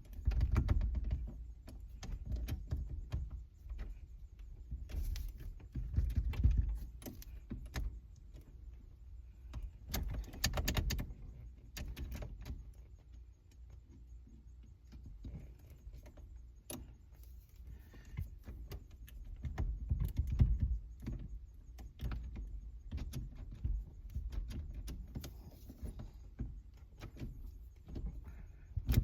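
Screwdriver and metal parts clicking, tapping and scraping at a car's steering column, irregular and bunched into bursts, as an old ignition switch is worked loose. Underneath is a low rumble of handling.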